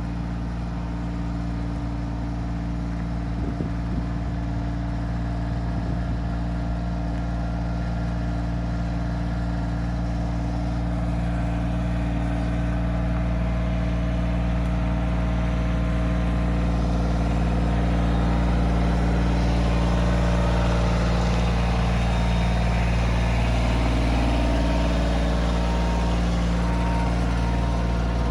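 Kioti CK2610 compact tractor's diesel engine running steadily under load while the tractor handles a very large log, growing somewhat louder in the second half.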